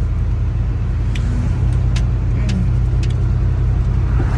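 Steady low rumble of a car heard from inside the cabin, with its engine running, and a few faint clicks over it.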